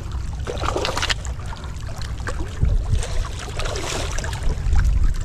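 A hooked mud carp splashing at the water's surface as it is drawn into a landing net, in bouts about a second in and again around three to four seconds in, over a steady low rumble.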